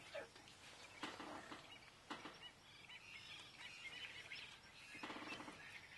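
Near silence with faint, short bird chirps.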